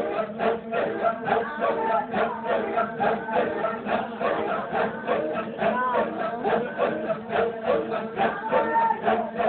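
A group of Maasai singers chanting together in a steady, pulsing rhythm, the traditional accompaniment to the Maasai jumping dance.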